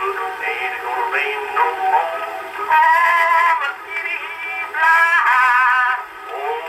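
Edison cylinder phonograph playing an early 1920s acoustic recording through its horn. The music sounds thin and narrow, with no bass, and has long held notes about three and five seconds in.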